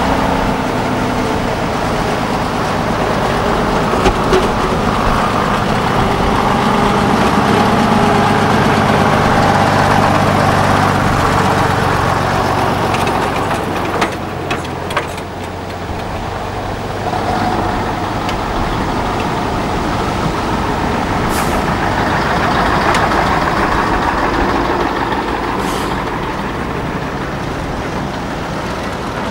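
Diesel engines of classic AEC lorries running as they drive slowly past. A tractor unit's engine is heard through the first half, and a second lorry's engine takes over later. A couple of brief hisses come in the second half.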